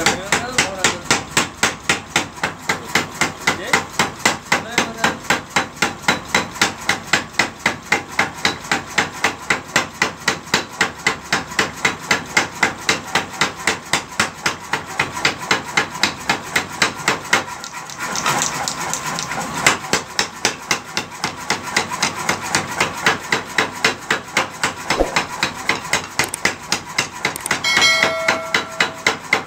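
Power hammer striking a red-hot steel tractor blade in rapid, even blows, about three a second, drawing the edge thin to sharpen it. The hammering breaks off briefly about two-thirds of the way in, then resumes.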